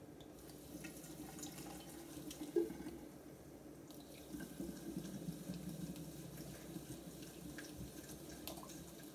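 Carbonated water running into a glass bottle onto cola powder and syrup, fizzing and foaming up as the carbonation reacts with the stevia. There is a light knock about two and a half seconds in, and the liquid sound grows fuller a little after four seconds.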